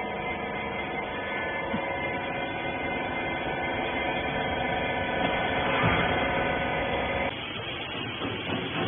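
Hydraulic press baler's electric pump motor running with a steady hum, which cuts off abruptly about seven seconds in.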